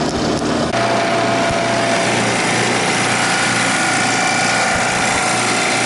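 Refrigerant recovery machine running steadily, a loud mechanical hum with a faint steady whine, pulling MP39 refrigerant out of a refrigeration system into a recovery tank. The sound changes abruptly about a second in.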